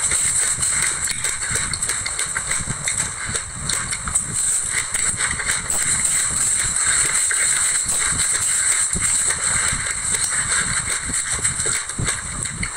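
A wooden spoon stirring and scooping through a glass bowl of dry white sesame seeds, giving a dense, steady, gritty rustle of seeds shifting against each other and the bowl.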